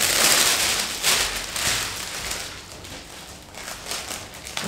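Red cellophane gift wrap crinkling as it is handled and spread out, loudest in the first two seconds and then dropping to softer rustles.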